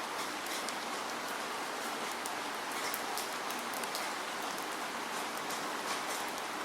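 Steady rain falling, an even hiss with many distinct drops spattering on a surface throughout.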